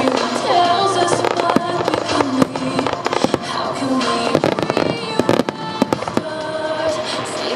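Fireworks display: a rapid run of aerial shells bursting with sharp bangs and crackle, thickest about four to five seconds in, over music playing at the same time.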